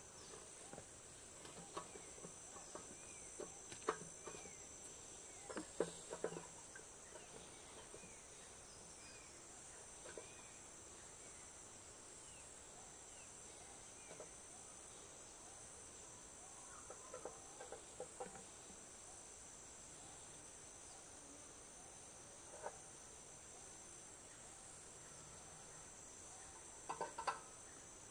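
Steady high-pitched drone of rainforest insects, with scattered faint knocks and clatters and a run of small chirps a few seconds in.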